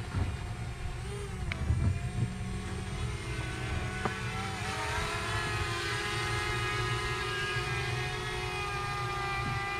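DJI Mini quadcopter drone's propellers whirring, several whining tones that rise in pitch a few seconds in and then hold steady.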